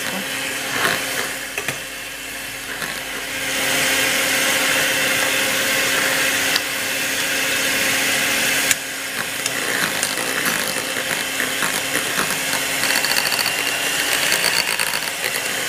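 Electric hand mixer running, its beaters whipping cream in a glass bowl: a steady motor hum with the whirr of the beaters, getting louder about three and a half seconds in.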